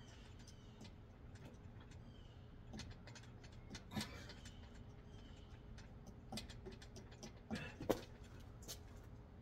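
Scattered light clicks and taps over a faint steady low hum, with two louder short knocks, about four seconds and about eight seconds in.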